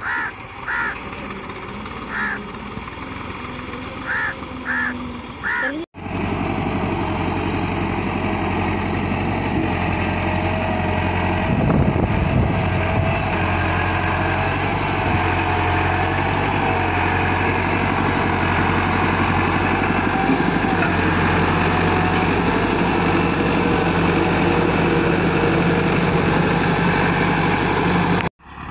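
Massey Ferguson 385 tractor's diesel engine running steadily close by while pulling a loaded trolley. For the first six seconds a tractor is heard further off, with a few short bird calls over it.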